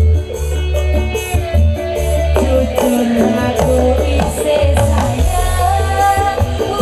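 Live dangdut band playing: kendang hand drums keep a quick rhythm over a heavy bass line, with a melody carried on top.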